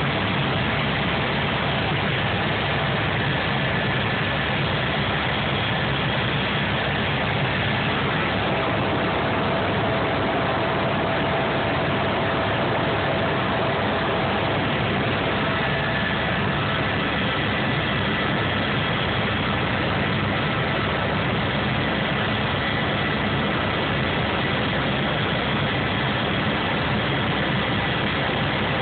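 Helicopter in flight, heard from inside the cabin: a steady, loud drone of turbine, rotor and rushing air, with faint high whines held throughout.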